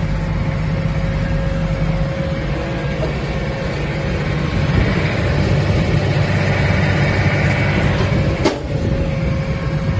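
Tractor and hay baler running: a steady engine drone with a thin, steady whine over it, and one sharp click about eight and a half seconds in.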